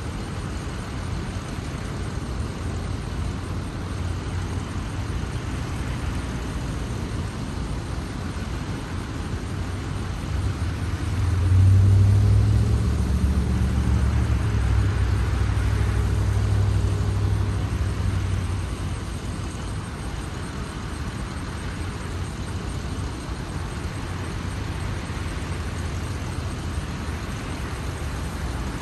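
Vehicles of a slow motor procession driving past through an intersection, a steady low engine hum. One vehicle's engine grows louder about eleven seconds in and fades away by about nineteen seconds as it passes close by.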